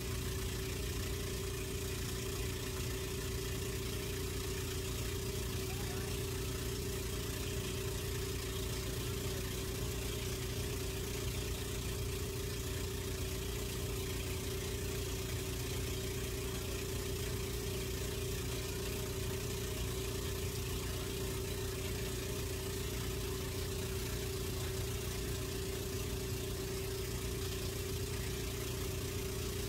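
An engine running steadily: a constant low hum with one steady droning tone and no change in speed.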